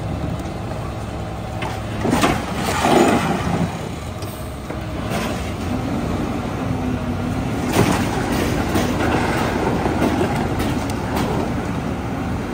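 New Way rear-loader garbage truck running at the curb, its engine and hydraulic packer rumbling steadily while trash bags and loose items are loaded into the hopper. A burst of clattering and crunching comes about two to four seconds in, and a sharp knock near eight seconds.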